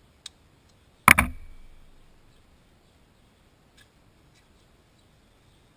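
A metal hand tool clanks down once, about a second in, with a brief metallic ring fading after it. A faint click comes just before it and a few light clicks follow later.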